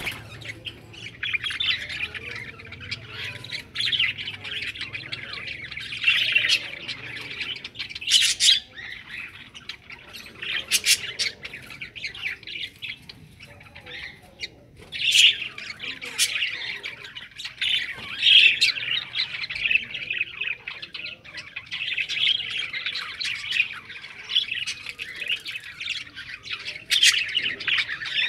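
Budgerigars chattering continuously, a busy stream of warbling chirps broken by sharper squawks every few seconds.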